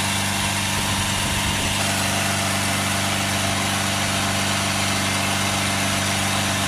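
Ford Transit Custom 2.2 four-cylinder diesel engine running steadily at raised revs held by a pedal depressor, warming up after the coolant was topped up.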